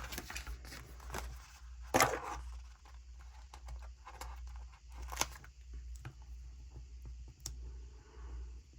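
Paper sticker sheets being handled: soft rustling and peeling, with sharp clicks or taps about two, five and seven and a half seconds in.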